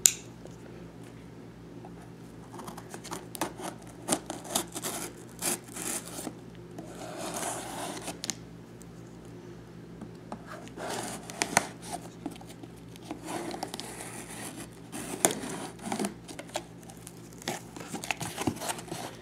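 Knife blade cutting and scraping through packing tape on a cardboard box, with scattered clicks and rubbing of cardboard as the flaps are worked open near the end.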